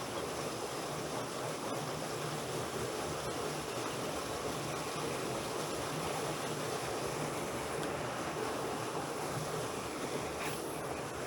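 Steady rush of flowing water, even throughout, with no distinct events.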